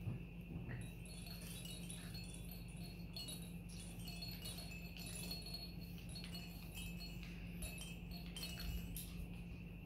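Hanging plastic chains, rings and rattle toys of a puppy play gym jingling and clattering, a busy run of small clicks and tinkles, as Boston terrier puppies tug and bat at them.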